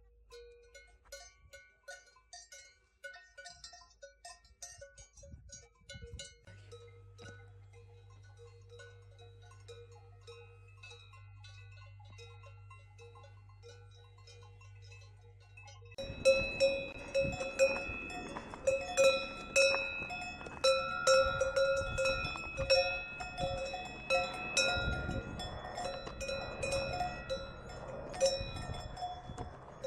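Several bells worn by grazing livestock, clanking irregularly. The bells are faint at first and become much louder and denser from about halfway through.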